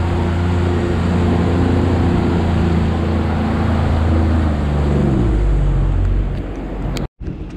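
Jet ski engine running at speed, then the throttle is eased off about four seconds in and the engine note falls steadily as the craft slows toward idle. The sound cuts out for a moment near the end.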